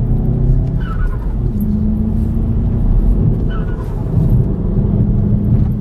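VW MK7 Golf GTI's turbocharged 2.0-litre four-cylinder pulling hard under acceleration, heard loud inside the cabin, the engine note holding steady in stretches. Twice it lets off with a short falling whistle: the turbo fluttering as the throttle lifts.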